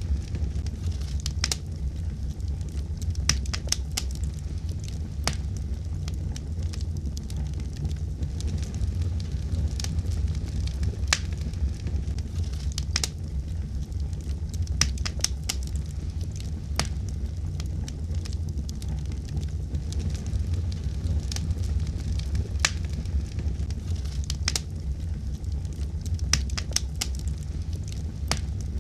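Wood fire burning in a fireplace: a steady low rumble with irregular sharp crackles and pops scattered throughout.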